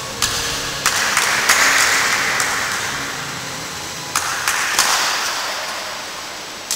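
Applause with a few sharp, separate claps, swelling twice.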